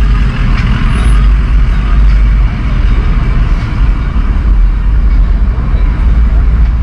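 Motor vehicle engines in slow street traffic: a steady, loud low rumble with no single sharp event.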